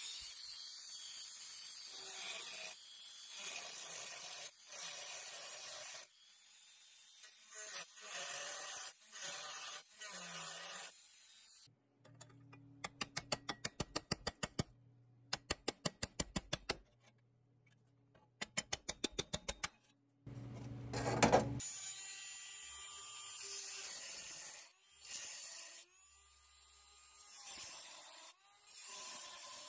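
Rotary tool grinding the heads off the rivets in a pressed-steel toy truck trailer floor, in repeated bursts a second or two long that start and stop. In the middle come three short runs of rapid, even ticking over a low hum.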